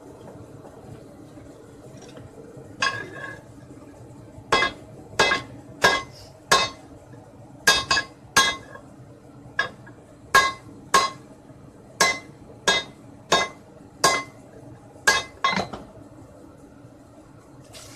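Small sledgehammer striking a 19 mm threaded steel reinforcing bar to beat it straight: about seventeen sharp, ringing metal blows at an uneven pace of one or two a second.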